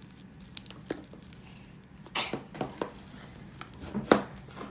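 Sticky homemade glue slime being squeezed and stretched by hand: scattered short squelches and pops, the loudest about four seconds in.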